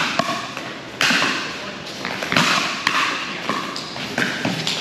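Pickleball rally: sharp pops of paddles striking the hard plastic ball, roughly one a second, with fainter taps of the ball bouncing on the court in between.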